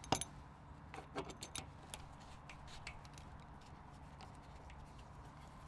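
Metallic clicks and scrapes of a circular multi-pin power connector being pushed onto its panel socket and its locking collar twisted: one sharp click at the start, then a scatter of lighter clicks over the next few seconds. A low steady hum runs underneath.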